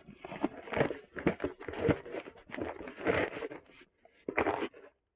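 Packaging being handled: an irregular run of crinkling and rustling, like plastic bags and paper being moved about, with a louder rustle near the end.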